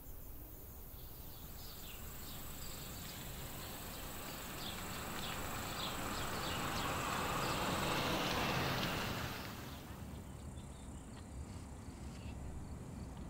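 Outdoor countryside ambience: many short, high chirps over a rush of noise that swells slowly and drops away about nine and a half seconds in, with fainter chirps after.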